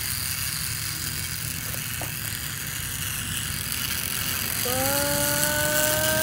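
Small battery-operated toy train's electric motor and gears whirring steadily as it runs along wooden track. About five seconds in, a long held tone joins, rising slightly in pitch.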